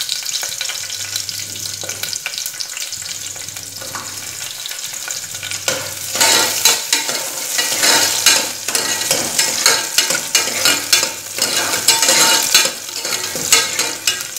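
Chopped shallots and green chilli sizzling in hot sesame oil in an aluminium pressure cooker. From about six seconds in they are stirred, and the sizzle turns louder with rapid crackling and the scrape and click of the spoon against the pot.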